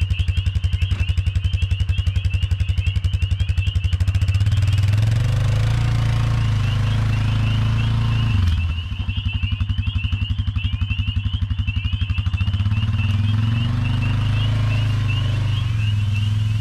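Ryobi 18V EZClean cordless pressure washer running, its small pump making a rapid, even pulsing hum as it sprays pond water onto an ATV. The hum drops out briefly about halfway through, then picks up again.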